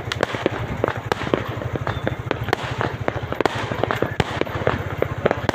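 Fireworks going off: a dense, irregular string of sharp bangs and crackling pops, several a second, without a break.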